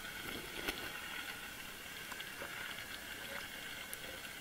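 Underwater ambience picked up by an action camera's built-in microphone: a steady hiss with scattered faint ticks and one sharper click shortly after the start.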